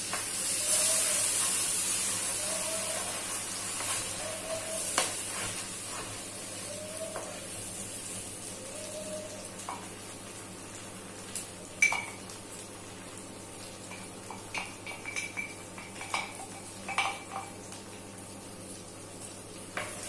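Garlic butter sizzling in a wok as a spoonful of red sauce goes into the hot fat. The sizzle swells at once, then slowly dies down. In the second half a wooden spatula stirs and knocks against the wok with a run of sharp taps.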